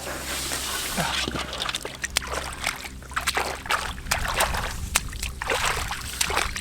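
Shallow muddy water sloshing and splashing as hands grope and scoop through it, with many short sharp splashes and knocks. A steady low hum runs underneath.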